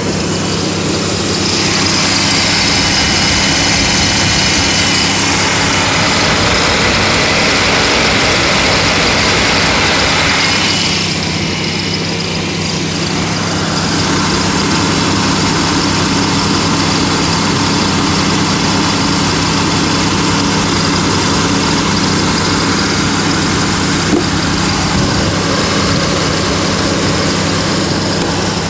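Pontiac Aztek's electric radiator cooling fans running on high speed, commanded on with a scan tool: a loud steady rush of air over the engine's steady low idle hum. The rush eases briefly about eleven seconds in, then returns.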